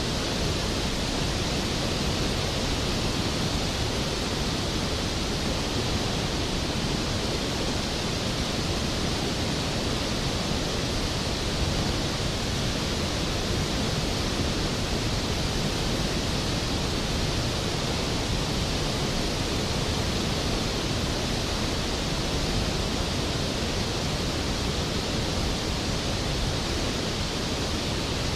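Large waterfall crashing steadily onto rocks and pool: an unbroken, even roar of falling water with no distinct splashes standing out. The sound is the Skógafoss waterfall.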